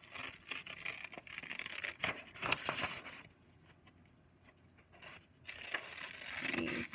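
Scissors cutting through a sheet of graph paper: a run of snips and crackling paper, a pause of about two seconds, then more cutting.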